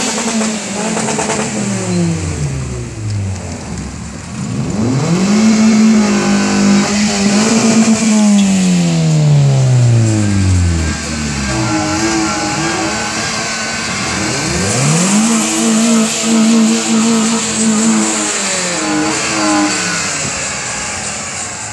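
Car engines revved hard twice. Each time the engine climbs quickly to a high rev, holds there for about three seconds, then drops away, with the engine note sliding down as the cars go by.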